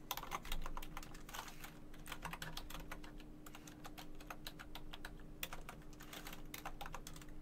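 Typing on a computer keyboard: quick, irregular keystroke clicks in short runs, over a faint steady hum.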